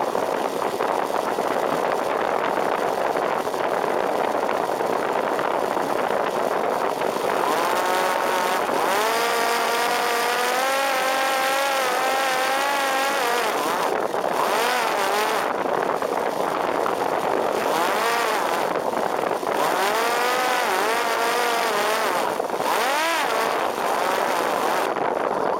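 Parrot Disco fixed-wing drone's electric pusher motor and propeller whining over heavy wind rush, the pitch climbing and holding, then wavering up and down as the throttle changes.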